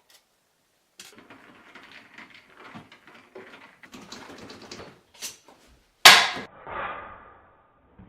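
Small clicks and clattering of tools and fridge door parts being handled, then one sharp, loud knock about six seconds in with a short rattle after it.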